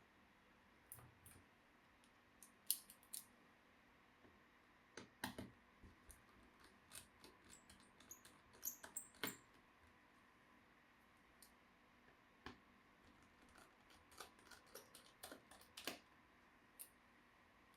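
Irregular small clicks and taps of laptop parts being handled during disassembly: plastic and metal pieces and tools knocking lightly, in scattered groups with short gaps between.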